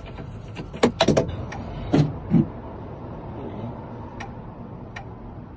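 Sharp clicks and knocks of a car key being handled and set into a key reader, several in quick succession in the first two and a half seconds, over a steady low rumble.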